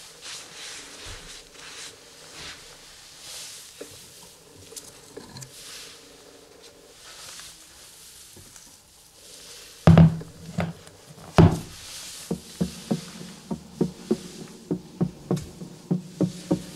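Faint handling rustles, then two sharp metal knocks about ten seconds in as the hanging weight is lifted off the friction-test rig's lever arm, followed by a steady run of quick clicks, about three a second.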